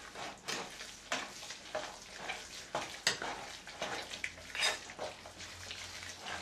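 Stirring a wet, sticky mix of sourdough starter, oil and sugar in a bowl, in repeated strokes about twice a second.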